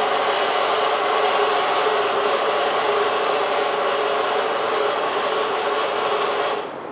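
Loud, steady rushing noise of a muddy flood torrent and storm in a cyclone, played back from a phone video through speakers. It cuts off suddenly near the end.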